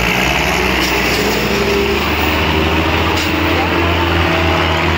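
Diesel tractor engine running steadily at speed, its pitch shifting slightly about two seconds in, with crowd voices behind it.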